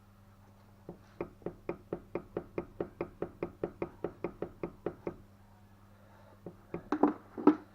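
A run of evenly spaced sharp knocks, about four or five a second for some four seconds, then a few louder, irregular knocks near the end, over a faint steady low hum.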